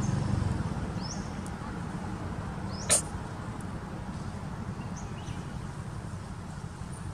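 Baby long-tailed macaques giving short, high-pitched squeaks. A few are faint, and one sharp, loud squeak comes about three seconds in, over a steady low rumble.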